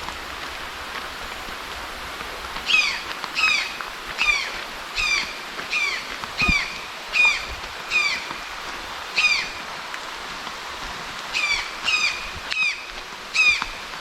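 A bird repeats a short, downward-slurred call about a dozen times, roughly one every 0.7 s, with a pause midway. Behind it runs the steady rush of a waterfall.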